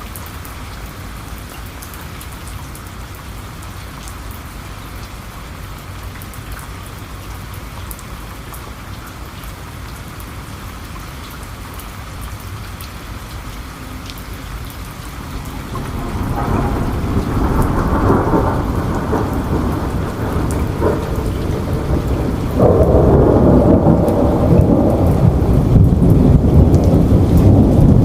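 Steady rain falling, joined a little past halfway by a rolling thunder rumble that grows louder and stays heavy to the end.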